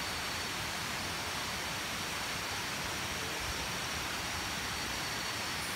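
Steady night-time tropical forest insect chorus: a few thin, unchanging high-pitched tones over an even hiss.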